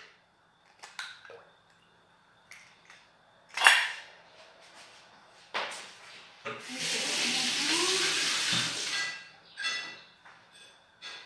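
Kitchen tap running into a sink for about two and a half seconds while hands are rinsed under it, starting a little past the middle. Before it come a few scattered knocks and clinks, the loudest a sharp knock about three and a half seconds in.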